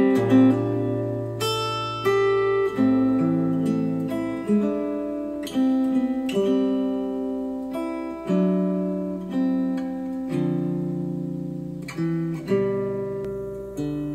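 Acoustic guitar music of picked notes that ring and die away, played through Monitor Audio Bronze 100 bookshelf speakers. Near the end the playback switches to Polk Audio Reserve R100 bookshelf speakers.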